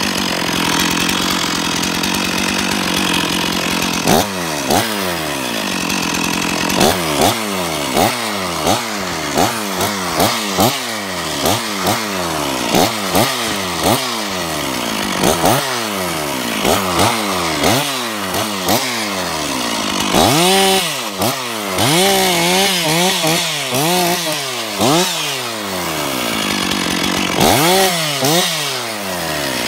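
Stihl two-stroke chainsaw idling, then revved in short bursts about once or twice a second, the engine speed dropping back after each one. About twenty seconds in come several longer revs, and it settles back to idle near the end.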